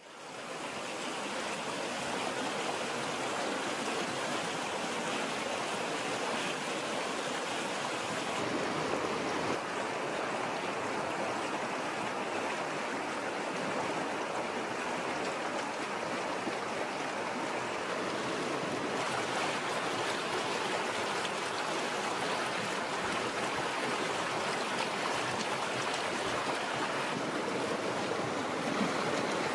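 Shallow river running over rocks in small rapids: a steady rush of flowing water that fades in over the first second.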